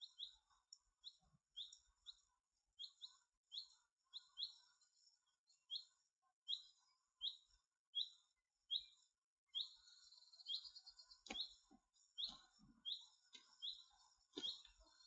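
A small bird calling over and over with a short chirp, about one to two a second. A few sharp knocks come in the second half.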